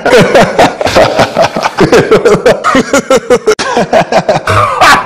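A man laughing hard and long in rapid, repeated bursts of ha-ha.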